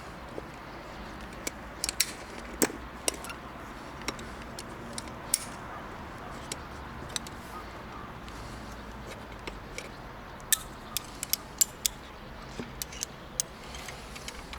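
Irregular light metallic clicks and taps, over a dozen scattered through, from hand tools and hardware being handled during concrete patching work, over a steady low background rumble.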